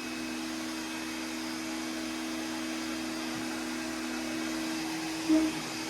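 Small CNC router's spindle running at a steady speed: a constant tone over an even motor hum. A brief louder sound comes about five seconds in.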